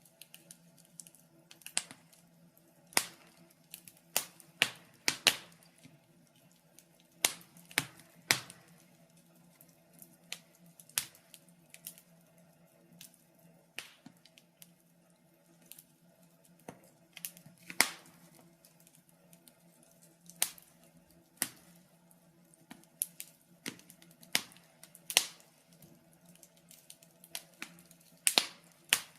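Wood fire crackling in a fireplace: irregular sharp pops and snaps, sometimes several in quick succession, with short quiet gaps between.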